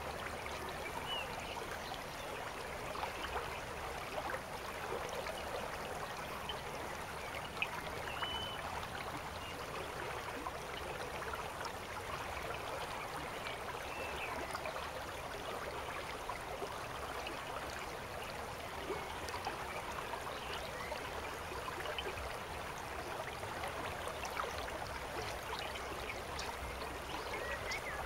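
Steady rush of running river water, with a few faint short high chirps over it.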